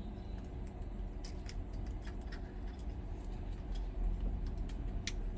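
Light, scattered clicks and ticks of small tools and parts being handled while an iPhone 11 is taken apart, with one sharper click near the end, over a steady low hum.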